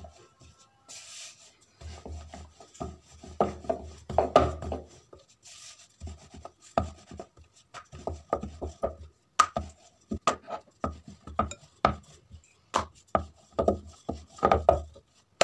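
Wooden rolling pin rolling out parotha dough on a round wooden board: uneven back-and-forth strokes with a low rumble, broken by many sharp knocks of wood on wood.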